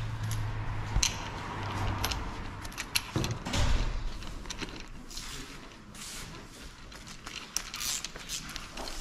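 Bubble wrap and plastic packing rustling as hands handle and unwrap a motorcycle handlebar, with small clicks and knocks from the cables and metal parts.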